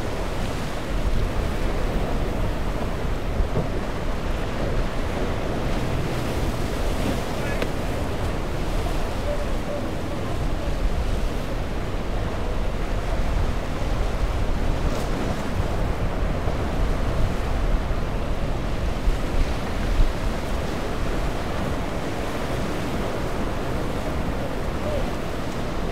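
Ocean surf breaking and washing around jetty rocks, with wind buffeting the microphone as a steady low rumble.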